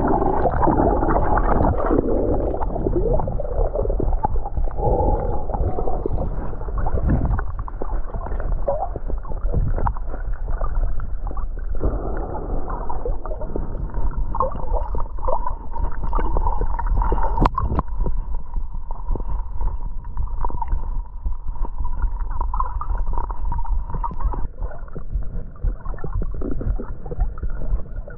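Muffled sloshing and gurgling of water around a person swimming, heard as through water with the high end cut off. A steady hum joins in a little under halfway through and fades out near the end.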